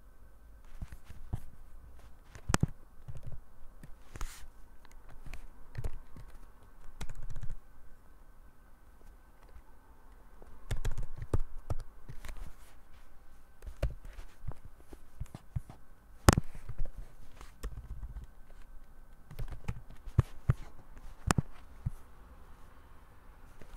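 Typing on a computer keyboard: irregular clicks and taps, with a few soft low thumps in between.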